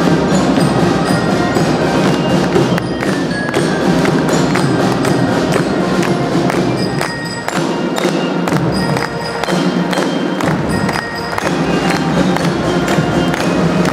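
Youth marching band playing a march on marching drums and bell lyres: a bright ringing bell melody over a steady drum beat.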